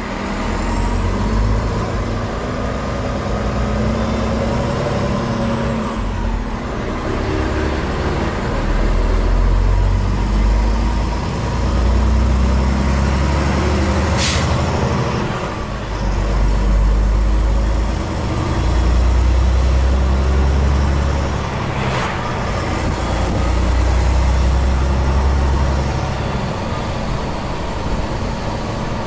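Volvo VNL860 semi truck's diesel engine heard from inside the cab, a heavy low drone as the truck pulls away and picks up speed, swelling and easing in several waves as it works up through the gears. Two sharp clicks cut through about halfway and about three-quarters of the way in.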